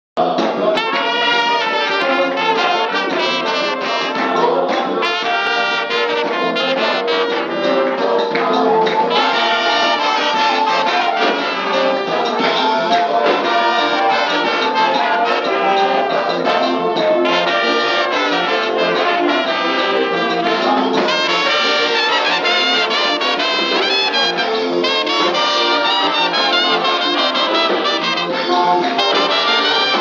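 A small church brass ensemble, mainly trumpets with a larger brass horn, playing a praise tune together, loud and continuous.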